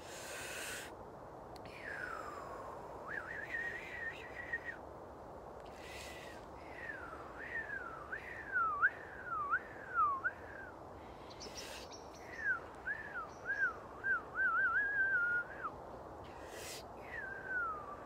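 A woman whistling through pursed lips: a wordless, wandering tune of long falling slides, a held note and runs of quick up-and-down swoops ending in a warble, with sharp breaths taken between phrases.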